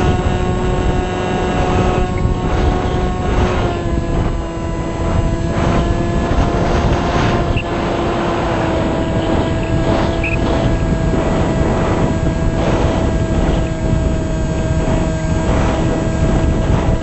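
Motor and propeller of a small Multiplex Shark RC plane, heard from a camera mounted on the plane, running at a steady whine that dips slightly in pitch a few seconds in. Wind rushes over the microphone throughout.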